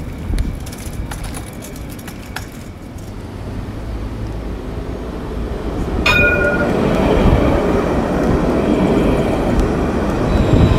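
Street noise at a tram stop. About six seconds in comes a sharp squeak with a brief ringing tone, then a louder, steady rumble and hiss as a city bus pulls in and stops alongside.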